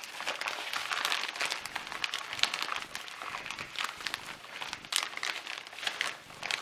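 Plastic vacuum-sealer bag crinkling as it is shaken and turned by hand to toss chicken legs in dry spices, an irregular run of crackles.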